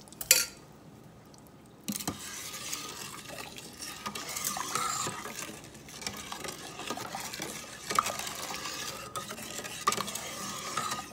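A utensil stirring sugar into hot mango juice in a pot, swishing through the liquid and scraping and clinking against the pot. There is a single sharp knock right at the start, and the stirring begins about two seconds in.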